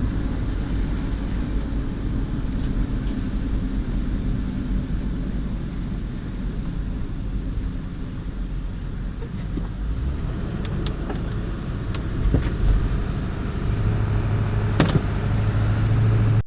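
A vehicle driving along a road: a steady low engine and road rumble, with a few sharp clicks or knocks in the last several seconds and a low engine hum rising near the end.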